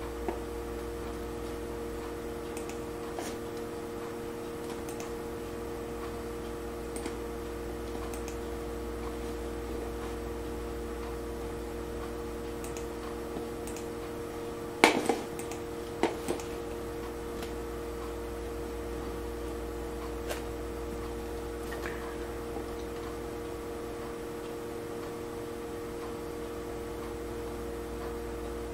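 Steady low electrical hum with faint scattered ticks, and a short cluster of sharper clicks about halfway through.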